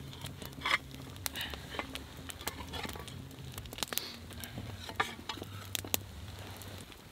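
Wood campfire crackling with frequent sharp pops, while a small shovel and a stick scrape and shift the burning wood and coals.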